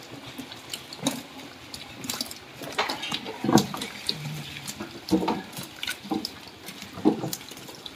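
Live hybrid magur catfish slapping and flopping wet on a plastic tarpaulin as they are grabbed by hand and dropped into a bamboo basket: irregular wet slaps and splashes, a few of them louder than the rest.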